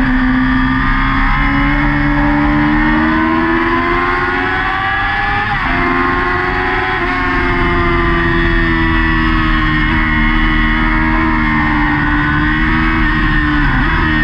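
Yamaha R6 600 cc inline-four racing engine at high revs, heard from the bike itself. Its pitch steps up about a second in and climbs, breaks briefly twice near the middle as gears change, then slowly falls as the bike is held leaned over through a long corner.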